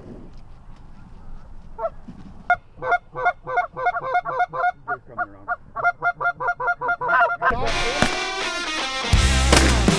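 Canada geese honking in a rapid run, about three to four honks a second. About seven and a half seconds in, music starts and covers them.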